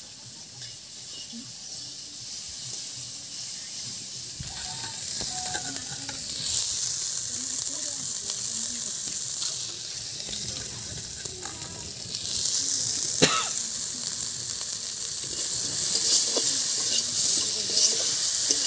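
Raw mango pieces frying in oil in a steel wok, sizzling steadily while a spatula stirs them. The sizzle grows louder about six seconds in and again after twelve seconds, with a single sharp knock about thirteen seconds in.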